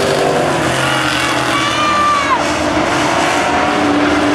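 Street stock race cars' engines running at speed around a dirt oval: a steady, loud drone of several cars together, the pitch shifting slowly as they pass. About two seconds in, a high tone glides downward over the drone.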